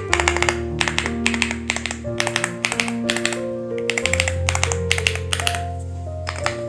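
Typing on the Epomaker X Feker Galaxy80 mechanical keyboard: quick runs of key clicks with short pauses between them. Background music with sustained bass notes plays underneath.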